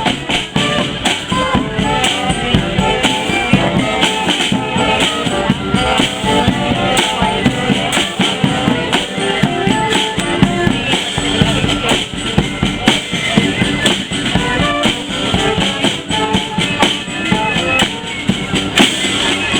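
Live street band playing, with drums and percussion keeping a steady beat under pitched instrument parts.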